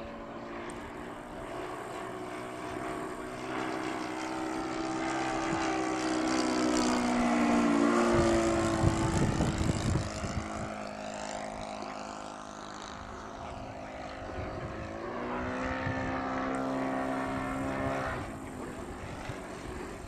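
Single-engine propeller plane flying overhead, its engine drone growing louder as it approaches and dropping in pitch as it passes, about halfway through and again near the end.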